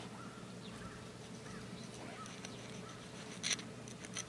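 A knife cutting the beard off a wild turkey: faint handling, then two short scraping cuts, about three and a half seconds in and near the end.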